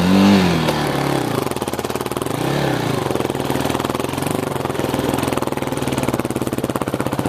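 A small engine running, briefly revved up and back down twice in the first few seconds, then running steadily with a fast, even pulsing beat.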